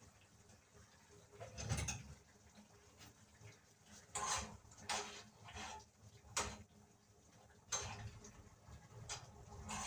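Cooking pots and utensils knocking and scraping on a stove: a string of short, irregular clatters.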